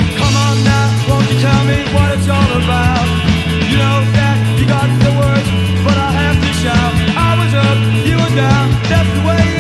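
Rock band recording with bass guitar, drums and guitar, with a lead melody of short notes that bend in pitch.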